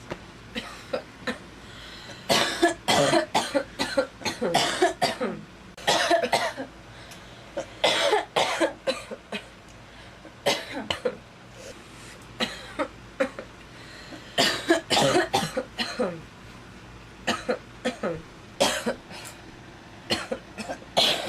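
A girl coughing over and over in short runs of several sharp coughs, with brief pauses between the runs.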